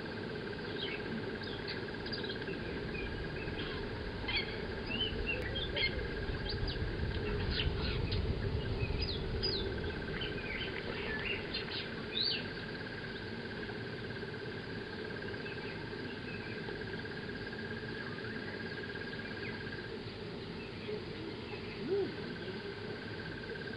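Birds chirping, with many short calls in the first half and only a few later, over a steady high-pitched drone that drops out twice.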